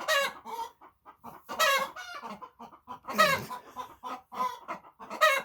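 Several hens cackling the egg song: runs of short clucks, with a loud drawn-out squawk about every second and a half. It is the flock's call after a hen has laid an egg.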